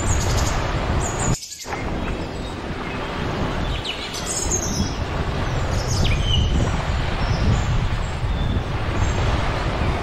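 A steady rush of wind and surf, with birds chirping in short high calls over it. The low rush drops away for a moment about a second and a half in.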